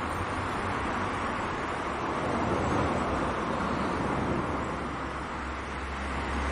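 Steady outdoor background noise: an even rushing hiss with a low hum underneath.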